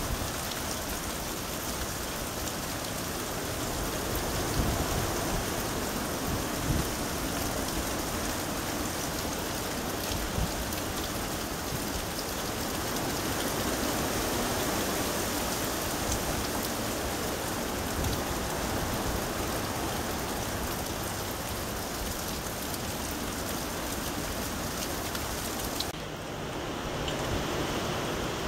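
Steady hurricane rain falling on trees, lawns and a wet street. Near the end the rain's high hiss abruptly thins.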